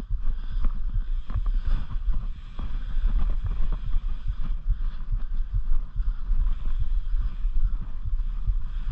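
Wind buffeting the microphone of a bike-mounted camera while a mountain bike rides a dirt trail. Frequent small knocks and rattles from the bike running over bumps and loose ground come through the rumble.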